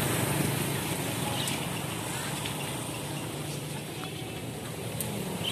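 Steady outdoor background noise: an even hiss-like wash with faint voices of people around.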